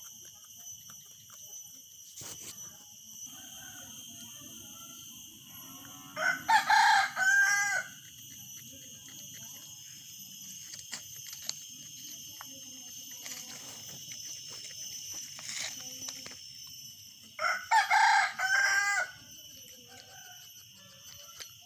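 A rooster crowing twice, each crow about two seconds long and roughly eleven seconds apart, over a steady high-pitched background hum.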